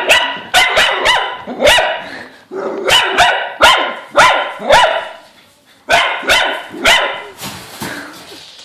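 Dog play-barking: loud single barks about half a second apart in runs of four or five, with brief pauses between runs, trailing off near the end.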